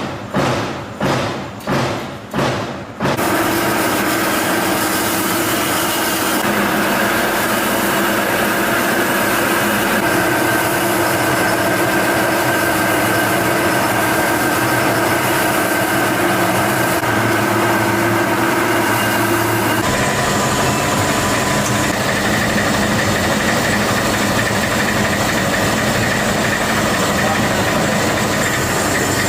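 Workshop machinery running steadily, a mechanical hum and hiss with a few held tones that shift in character now and then. It starts about three seconds in, after a run of regular thumps about two a second.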